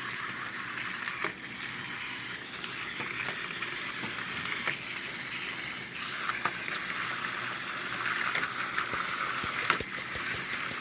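Several small wind-up toys running at once: their clockwork motors whir steadily, with rapid clicking and clattering that grows busier in the last few seconds.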